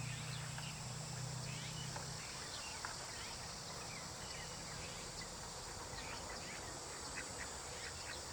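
Outdoor wetland ambience: many short bird chirps and calls come and go over a steady high-pitched insect drone. A low hum stops about two seconds in.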